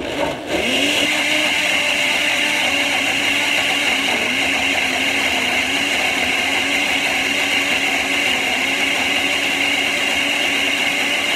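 Countertop blender with a glass jug switched on, spinning up within the first second, then running steadily as it blends a smoothie.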